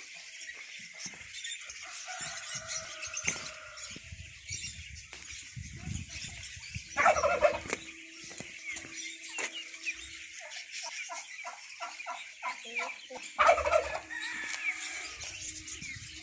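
Turkey gobbling twice, a loud rapid rattling call about seven seconds in and again near the end, over continuous chirping of many small cage birds.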